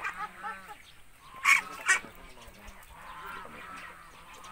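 Ducks calling with harsh, honking squawks while being held by the legs and wings, with two loud calls about a second and a half in and fainter calls from the flock behind.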